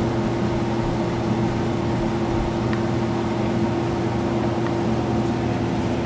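York Diamond 80 gas furnace running its blower in cooling mode: a steady hum with a few held tones, a harmonic resonance humming and buzzing from the cabinet.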